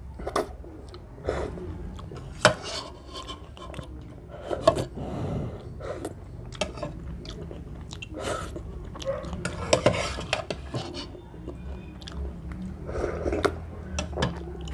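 A spoon clinks and scrapes against a ceramic bowl as the last of the ramen broth is scooped up. Between the clinks come sips of broth from the spoon and close-up chewing.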